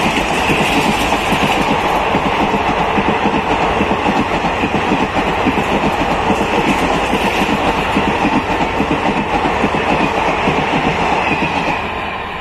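Indian Railways passenger train coaches passing close at speed: a steady rush of wheels on rail with rapid clickety-clack, easing off near the end as the last coach goes by.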